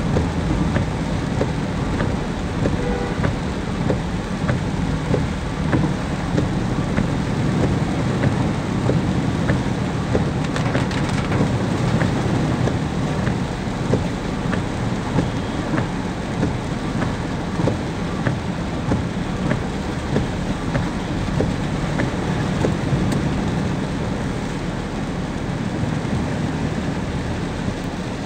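Rain pattering on a car's windshield and roof, heard from inside the cabin, with many sharp taps of single drops. Under it runs a low steady rumble from the car driving through the flooded road.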